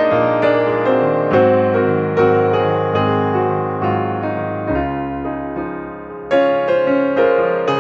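Background music: slow, gentle piano chords, each struck and left to ring, changing about once a second.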